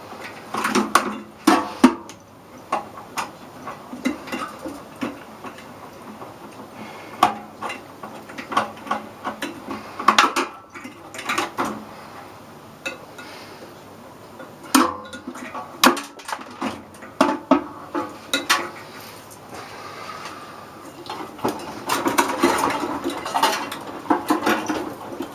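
Irregular metal clinks, knocks and rattles of hand tools and parts inside a stripped microwave oven's sheet-metal case while a component that is stuck down is worked loose. The clatter comes in scattered bunches and turns to a busier rattling near the end.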